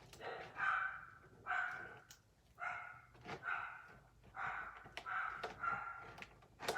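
A dog whining in short, high-pitched cries, about one a second, with sharp clicks of glue being stirred in a bowl.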